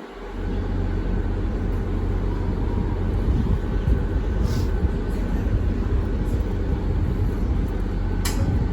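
Diesel locomotive of a New Jersey Transit commuter train idling at the platform, a steady low engine rumble, with a couple of faint brief ticks.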